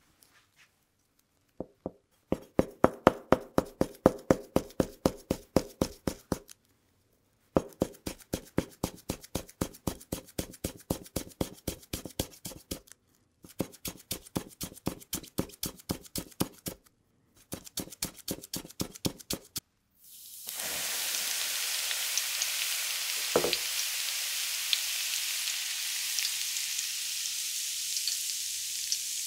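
A kitchen knife finely shredding green leaves on a cutting board: rapid, even strokes about six a second, in four runs with short pauses. About twenty seconds in, a steady sizzle starts suddenly as the shredded greens fry in hot oil, with one dull knock partway through.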